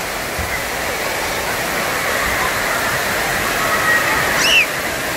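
Water rushing down a splash-park slide and splashing from the play structure's sprays, a steady even hiss. A short high squeal rises and falls about four and a half seconds in.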